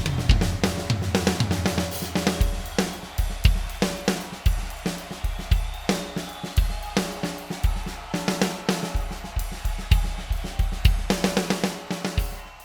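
Drum kit played in a solo: kick drum, snare and toms in quick fills under hi-hat and cymbal crashes, dying away near the end.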